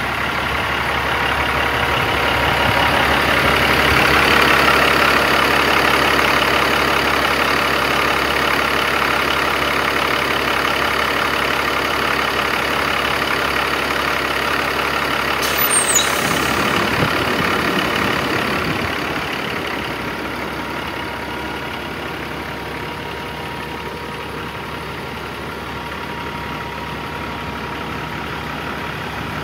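2007 Peterbilt 357's 15-litre six-cylinder diesel engine idling steadily, the sound dropping somewhat after about twenty seconds.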